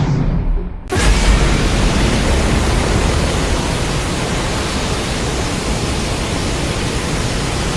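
Godzilla's atomic breath sound effect. A brief low build-up, then about a second in the beam cuts in as a loud, steady rushing noise that keeps going.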